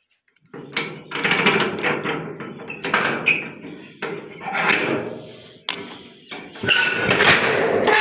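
Padlock and sheet-metal door rattling and clanking as the lock is unlocked and the door handled, starting about half a second in and coming in several loud bouts.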